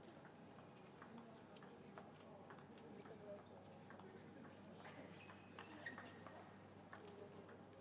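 Table tennis rally: a string of faint, sharp ticks as the ball is struck by the bats and bounces on the table, over a low steady hall hum.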